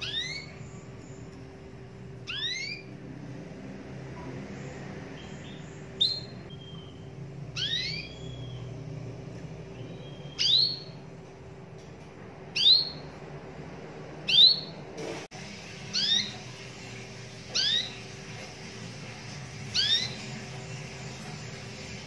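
Domestic canary (local Indonesian canary) giving short, single sweeping call notes, about ten in all, roughly one every two seconds. A faint steady hum runs underneath.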